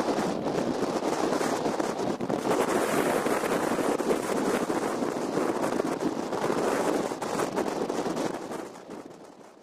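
Strong, gusty downburst wind buffeting the microphone: a rushing noise that swells and dips with the gusts. It fades away near the end.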